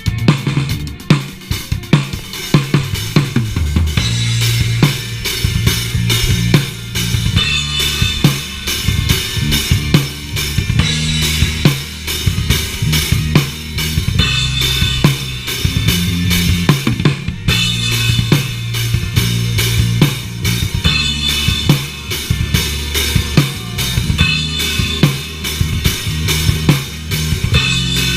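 Live rock band playing an instrumental passage: drum kit with bass drum, snare and cymbals keeping a steady beat under a bass guitar holding low notes and an electric guitar, picked up close on a chest-mounted GoPro's microphone.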